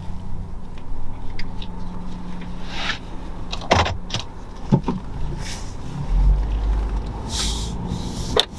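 Car noise: a steady low rumble with scattered clicks and knocks, growing heavier and deeper about six seconds in.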